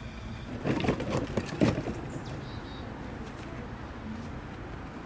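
Two short bird calls about a second in, over a faint steady outdoor background.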